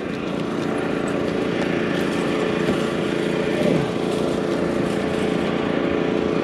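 A small engine running steadily at one speed, a constant motor drone that swells in over the first second and then holds level.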